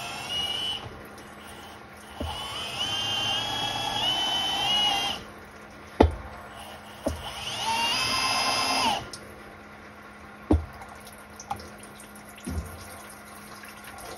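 An electric drill spins a sandpaper-wrapped bar against an engine block's crankshaft thrust surface, truing it with oil as coolant. It runs in three short bursts, the later two rising in pitch as the drill spins up. Sharp clicks sound between the bursts.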